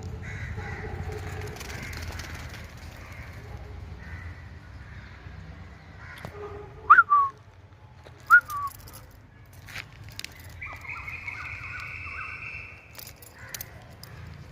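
Two short, loud recall whistles for a dog, about a second and a half apart, each a quick note that rises and then drops.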